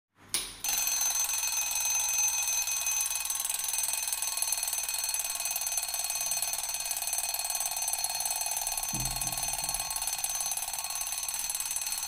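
A homemade 9-volt door alarm set off by the door opening: a steady, high-pitched tone that starts abruptly about half a second in and keeps sounding without a break.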